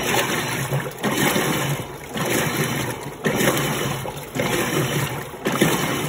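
Electrolux Turbo Limpeza top-load washing machine agitating its wash, water sloshing in the tub in regular surges about once a second.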